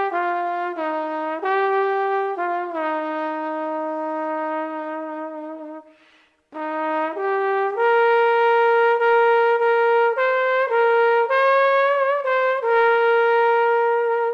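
A solo trumpet plays a slow, mournful melody in long held notes. It pauses briefly for a breath about six seconds in, then goes on with higher sustained notes.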